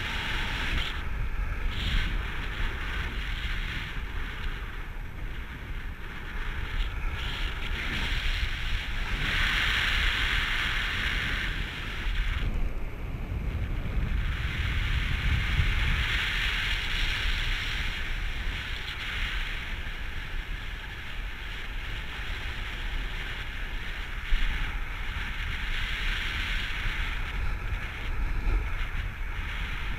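Airflow of paraglider flight buffeting the action camera's microphone: a steady rush of wind noise with low rumble that swells and eases in gusts, strongest about ten seconds in and again around sixteen seconds.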